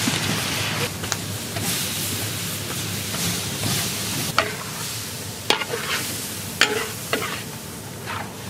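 Chunks of raw goat meat sizzling as they fry in a large metal wok and are stirred with a metal spatula. The hiss is strongest in the first second; in the second half the spatula clanks sharply against the wok several times.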